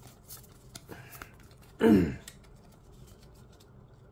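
Faint clicks and slides of trading cards being handled and shifted through a freshly opened pack's stack, with one short, louder vocal sound falling in pitch about two seconds in.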